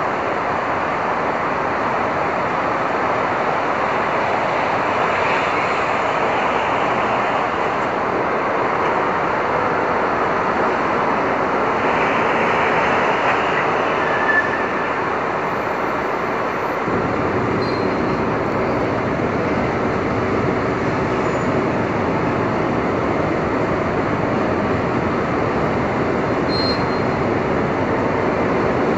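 Steady roar of a Manhattan street in a storm: rain and wind mixed with a wash of city traffic, with no single event standing out.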